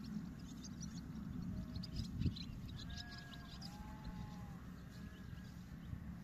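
Sheep bleating faintly in the distance over a steady low rumble, with high bird chirps and a single thump about two seconds in.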